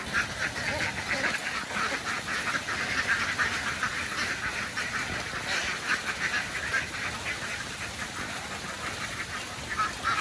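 A large flock of ducks quacking continuously, many overlapping calls.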